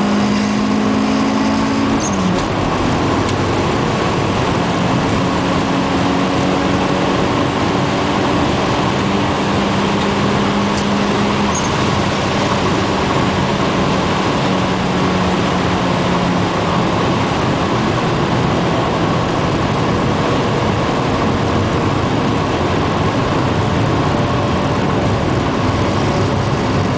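Turbocharged Ford Escort ZX2's four-cylinder engine pulling at high speed under full throttle, over loud, steady wind and road noise. About two seconds in the engine note drops at an upshift, then climbs slowly again as the car keeps accelerating.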